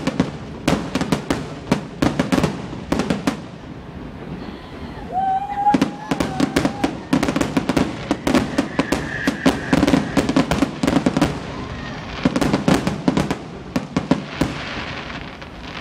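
Aerial fireworks shells bursting overhead: a rapid, irregular run of bangs and crackles, thickest in the middle and thinning near the end.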